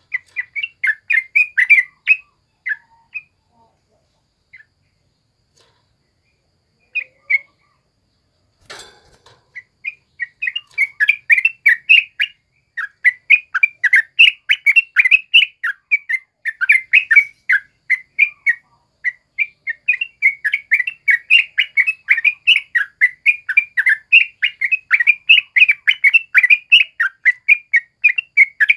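Yellow-vented bulbul (trucukan) singing in fast runs of short chattering notes. A brief run opens the sound, then comes a pause with a few stray notes and a single sharp click about nine seconds in, and from about ten seconds on the song runs unbroken.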